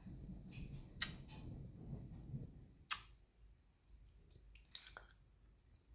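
Round plastic slime container being handled in the hands, giving two sharp plastic clicks about two seconds apart and a few faint ticks, over a low background rumble.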